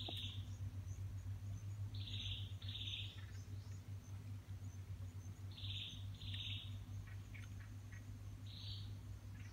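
A bird calling six times in short calls, mostly in pairs, over a steady low hum.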